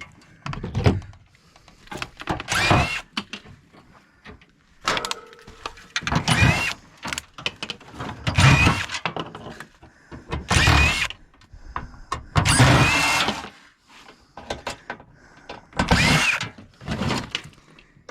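Metal and plastic parts of an air conditioner being pried, broken and banged apart by hand: a series of loud clanking, scraping bursts about every two seconds, some with a brief squeal of metal.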